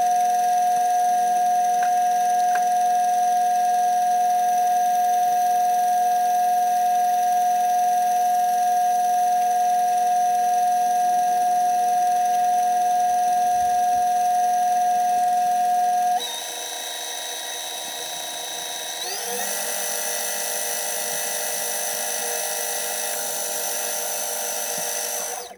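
Background music of long held synth-like tones. The chord changes abruptly about two-thirds of the way through, and a tone glides upward soon after.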